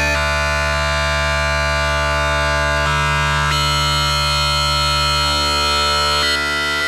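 UDO Audio DMNO hybrid polyphonic synthesizer playing a sustained pad sound: held chords over a steady low bass note, with the upper notes shifting to new chords several times.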